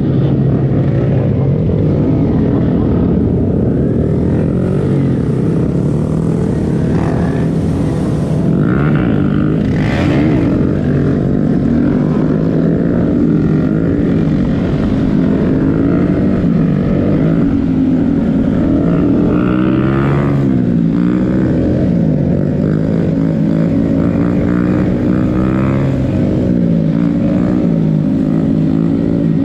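Motorcycle engine running continuously while being ridden, its pitch rising and falling as the throttle opens and closes.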